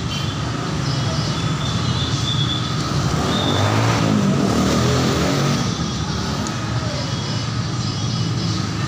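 Street traffic of motorbikes and cars running steadily, with one engine passing louder about four seconds in, rising in pitch before it fades.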